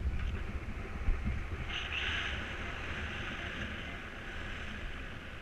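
Wind buffeting the microphone in flight under a paraglider mini wing: a steady low rumble, with an airy hiss that grows louder about two seconds in. There is a brief knock about a second in.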